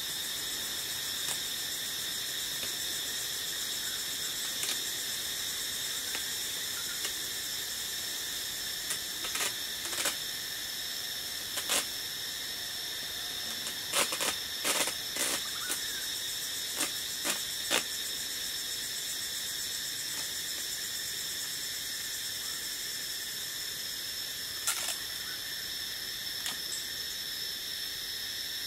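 Steady shrill insect chorus, with scattered short rips and crackles of adhesive tape being pulled off its roll and wrapped around bamboo frame joints. The rips are densest in the middle.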